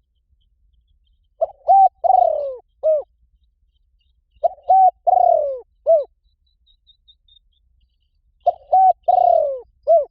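Spotted dove song: three phrases of low coos about three seconds apart, each of four notes with a longer, falling third note. It is used as a lure call to draw doves to a decoy.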